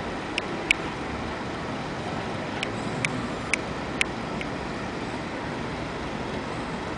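Steady background noise with no clear pitch, broken by several short sharp clicks in the first half.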